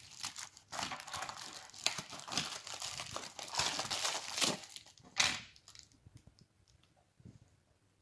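Clear plastic bags and bubble wrap crinkling as die-cast model cars are unwrapped and handled, in bursts for about five seconds with the loudest rustle a little after five seconds, then dying down to a few faint clicks.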